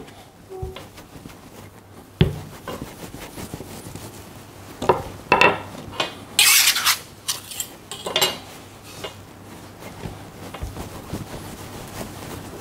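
Metal palette knife tapping and scraping against a floured worktop while pastry dough is worked loose. There are several sharp taps and one longer scrape about halfway through.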